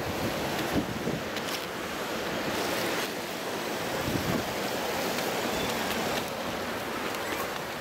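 Shallow river water rushing and splashing around concrete stepping stones, a steady running-water noise.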